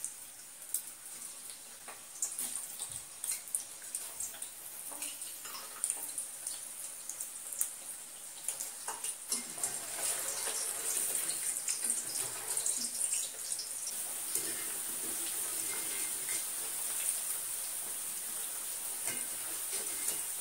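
Paneer cubes deep-frying in hot oil in a kadai: a steady sizzling hiss with scattered pops and crackles, growing louder through the first half as more cubes bubble in the oil.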